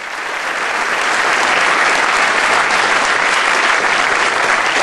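Audience applauding: the clapping swells over the first second, then holds steady.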